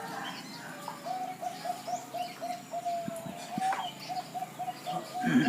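Perkutut (zebra dove) cooing: a run of short, evenly spaced notes at about four to five a second, broken by one longer held note, then more short notes. A louder, lower rustle or bump comes right at the end.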